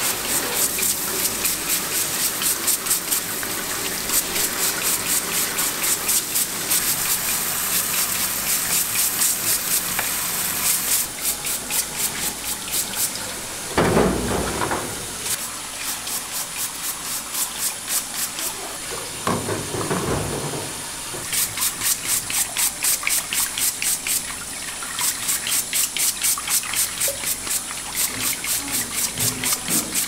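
Tap water running into a stainless steel sink while a stiff plastic brush scrubs clam shells in quick rhythmic strokes. The scrubbing pauses for a while in the middle, where a couple of louder knocks stand out.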